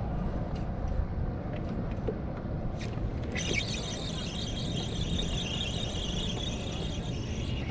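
Spinning reel's drag screaming as a hooked big trout runs and pulls line off. It starts about three and a half seconds in as a high, steady squeal and stops near the end, over low wind and water noise.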